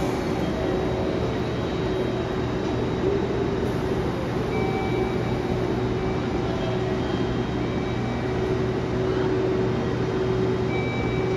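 Steady hum and whir of a JR Kyushu 811-series electric train standing at the platform, its on-board equipment running at a constant pitch, over a general station hubbub.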